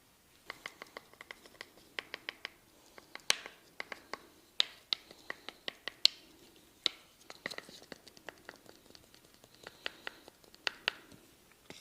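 A barber's hands at work in a massage: a run of sharp, irregular clicks and pats, several a second, beginning about half a second in, with some light scratchy rubbing.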